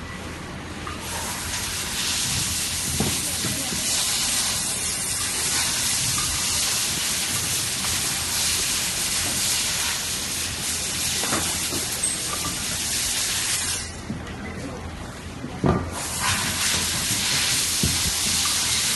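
A steady hissing noise that drops away about fourteen seconds in and comes back two seconds later, with a few soft knocks.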